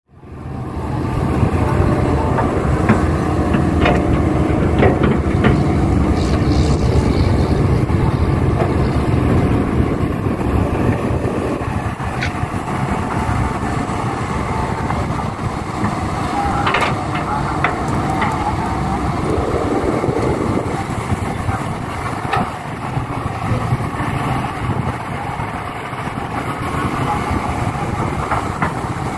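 Heavy diesel machinery working: the engines of an excavator and a dump truck run steadily and loud, with a few sharp knocks and clanks scattered through.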